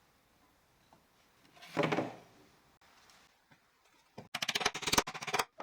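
Small wooden pieces being handled on the workbench: a short scrape or knock about two seconds in, then a quick rattling run of clicks near the end.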